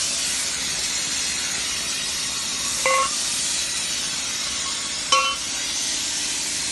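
Two short ringing metallic clinks, about two seconds apart, as small plasma-cut square steel tube pieces drop onto the painted concrete floor, over a steady loud hiss.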